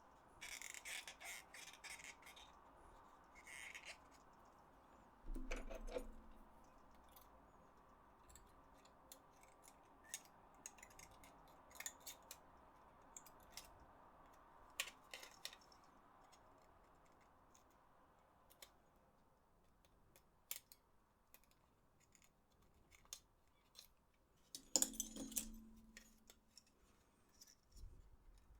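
Quiet handling of plastic game-controller parts: scattered light clicks and taps, with a few short scraping or rubbing sounds about a second in, near 5 seconds and again near the end.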